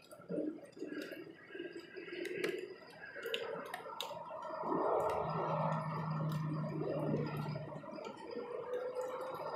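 Raindrops tapping and dripping on a clear plastic bird feeder, a scatter of sharp irregular ticks over a wet background. A low steady hum comes in for a couple of seconds past the middle.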